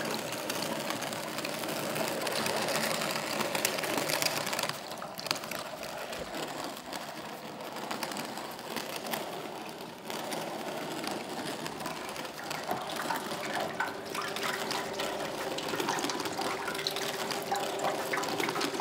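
A steady pouring, trickling noise, full of fine grainy ticks, that dips briefly twice; a low held tone joins it in the last few seconds.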